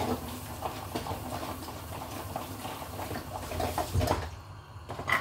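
Dishes, a colander and pots clattering and knocking at a kitchen sink over a steady hiss that stops about four seconds in, with a louder knock just after it.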